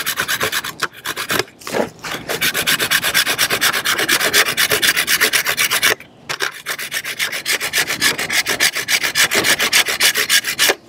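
A stick of fatwood rasped fast back and forth across the stainless steel grater panel of a folding camp stove, shredding it into fine tinder. The quick, even scraping strokes come several a second and break off briefly a few times, most plainly about six seconds in.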